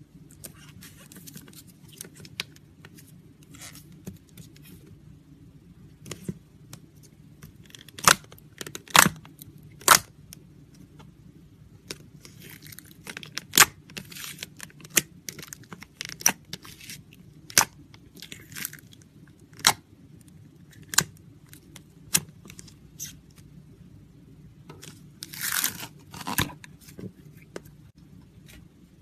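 Slime being pressed and poked by hand: soft crackling with about a dozen sharp pops and clicks at irregular intervals, and a longer crackle near the end.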